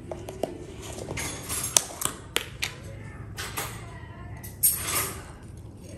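Light clicks and taps of tableware being handled, then a short rustling shake about four and a half seconds in, as sesame seeds are sprinkled over a plate of fried chicken.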